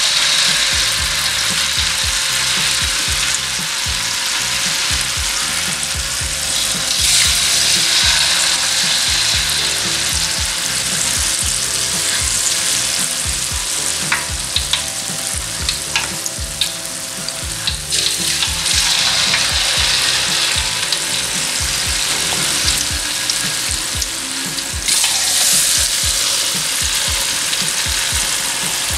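Peyek batter of rice flour and wet anchovies sizzling in hot oil in a wok: a steady frying hiss. It flares up as a spoonful of batter goes into the oil at the start, and surges again about 7 and 25 seconds in.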